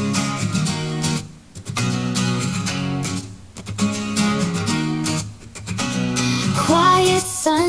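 Guitar-strummed intro of a pop song played back through a homemade full-range speaker: a paper cone and cloth surround in a 3.5-litre bass-reflex box, picked up by a microphone. Strummed chords come in short phrases with brief dips between them, and a voice-like melody slides in near the end.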